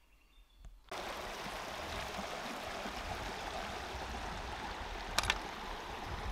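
Steady rush of a flowing creek, cutting in abruptly about a second in after a near-quiet start, with two brief clicks about five seconds in.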